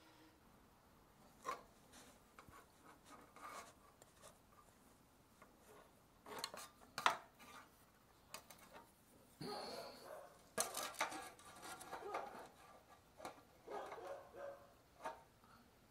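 Intermittent clinks, rattles and rubbing of aluminium mast tubes and rigging wire being handled, with a sharp click about seven seconds in and busier handling noise in the second half.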